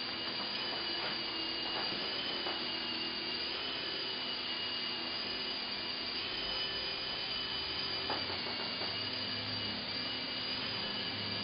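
E-flite Blade mCX micro coaxial helicopter in hovering flight: a steady high-pitched whine from its small electric motors and spinning rotors, wavering slightly in pitch as the throttle is adjusted.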